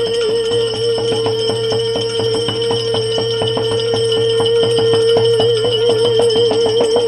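Instrumental interlude of a Gujarati bhajan: a melodic instrument holds one high note that wavers more toward the end, over a steady low drone and jingling percussion keeping a fast, even beat.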